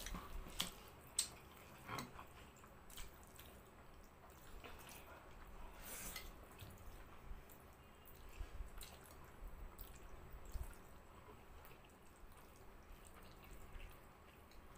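Faint wet eating sounds: spicy instant noodles being slurped and chewed, with scattered short smacks and clicks.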